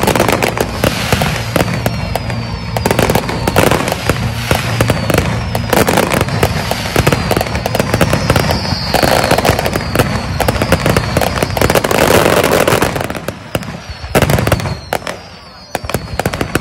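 A rapid barrage of aerial fireworks: many shells bursting in quick succession with crackling and high falling whistles. It thins out briefly near the end before the bangs resume.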